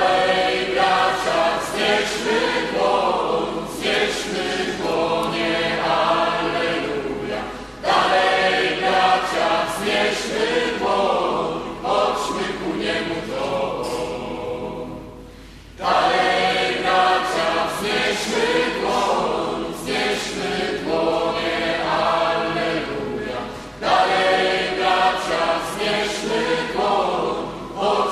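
A group of voices singing a Polish country-style Mass song, in long phrases that start afresh about every eight seconds.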